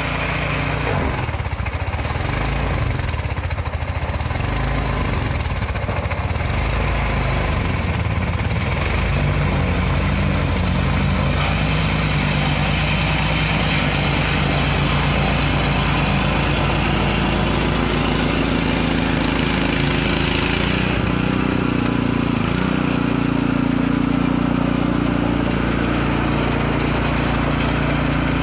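Neva MB-2 walk-behind tractor's engine running steadily under load, driving a front-mounted snow-thrower attachment through snow. The engine note rises partway through and dips briefly near the end.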